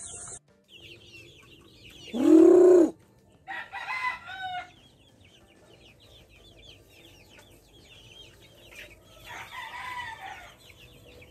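Backyard flock of young chickens: one loud drawn-out call about two seconds in and two shorter calls after it, over a steady stream of high peeping from chicks.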